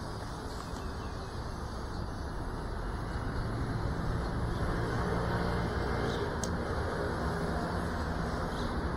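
Steady low outdoor rumble, like distant road traffic, growing a little louder about four seconds in.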